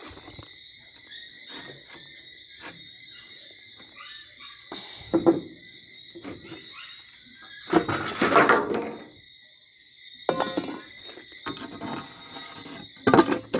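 Knocks, thunks and scraping of a window casing being worked loose and pulled off a cast concrete window opening. The longest and loudest scrape comes about eight seconds in.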